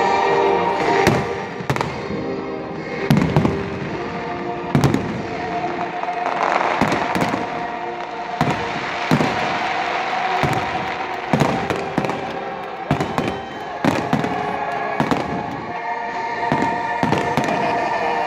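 Aerial fireworks shells bursting in a steady series of sharp bangs, about one every second or so, over music.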